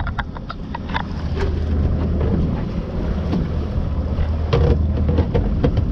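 Fishing boat's engine running with a steady low hum, wind buffeting the microphone, and a few scattered knocks on the boat.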